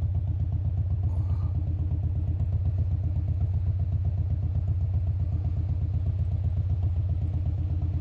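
Car engine running, heard from inside the cabin as a steady low rumble with a fast, even pulse, while the car creeps along in slow traffic.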